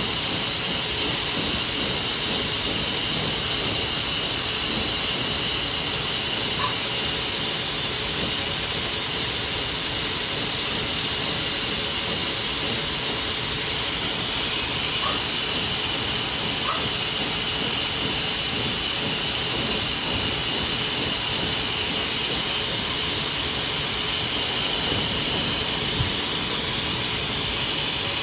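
Pet hair dryer blowing steadily, a constant rushing hiss, drying a dog's coat.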